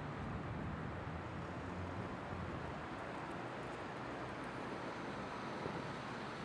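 Steady road and wind noise of a bicycle ride along a city street, with a low rumble.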